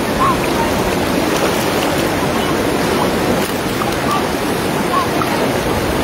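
Steady rush of flowing water in a shallow stream, an even noise without pauses.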